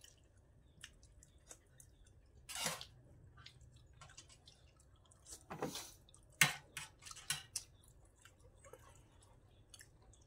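Eating sounds: two slurps of broth sipped from spoons, followed by a cluster of sharp smacks and clicks about six and a half to seven and a half seconds in, with small scattered clicks of spoons and mouths between.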